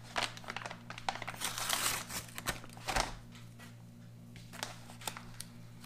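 Crinkling, rustling and tearing of a foil-lined paper ration pouch as its top tear strip is pulled off and the bag is handled, busiest in the first three seconds and sparser after.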